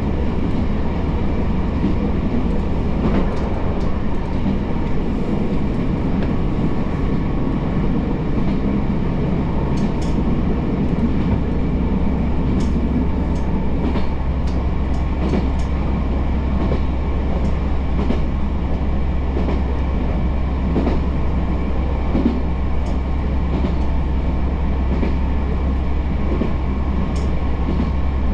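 Diesel railcar running along the line, heard on board: a steady low engine drone under continuous wheel-and-rail noise, with a scatter of light clicks partway through.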